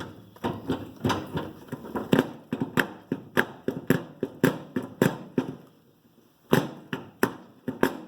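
Repeated sharp knocks on the front wheel hub of a lawn tractor, about two to three a second with a short pause near the end, knocking the wheel bearing loose on the axle.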